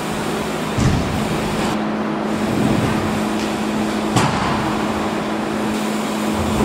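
BMX bike rolling over wooden ramps, with a steady low hum underneath. There is a knock a little under a second in and a sharper one about four seconds in as the bike comes back down onto the quarter pipe.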